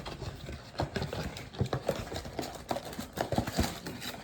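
Trading card packs and a cardboard box being handled and opened: irregular taps, clicks and rustles of cardboard, wrappers and cards.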